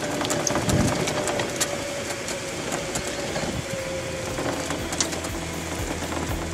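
Golf cart driving, its motor whining at a steady pitch that slowly drops, with rattling and small knocks as it rolls over the ground.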